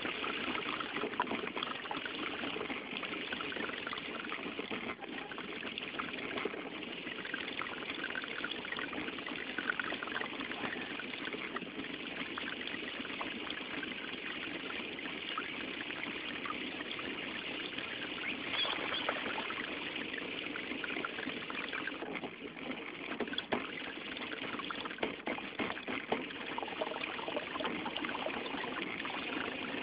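Water splashing and trickling steadily against the hull of a small handmade electric RC boat as it moves, heard close up from a camera mounted on the boat.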